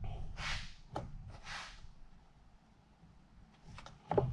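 Soft handling noise from the plastic HVAC heater box as the blend door assembly is set back in: two short scraping hisses, a small click about a second in, and another click near the end.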